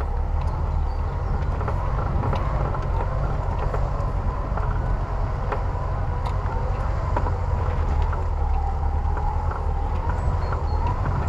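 Off-road 4x4 driving slowly along a rutted dirt track: a steady low engine drone, with scattered short knocks and rattles from the body as it rides over the bumps.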